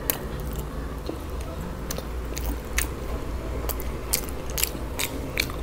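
Close-miked chewing of a KFC Zinger fried chicken burger: irregular sharp, wet mouth clicks and smacks, about ten of them, over a low steady hum.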